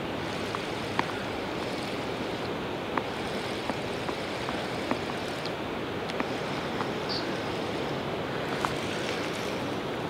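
Steady rush of flowing river water, with a few faint, irregular clicks scattered through it.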